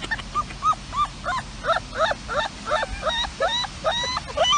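A puppy yipping and whimpering in a quick run of short rising-and-falling squeaky calls, about three a second, climbing higher in pitch toward the end.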